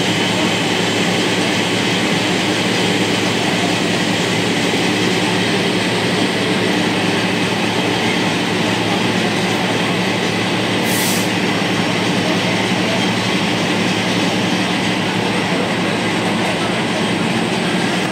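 Fire truck's engine running steadily, a loud continuous drone with a low hum that does not change. A brief hiss comes about eleven seconds in.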